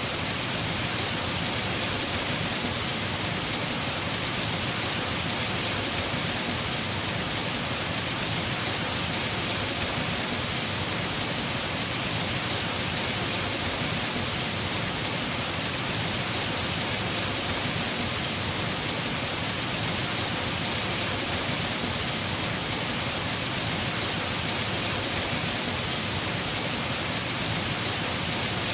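Heavy rain falling steadily on a house roof, an even unbroken hiss.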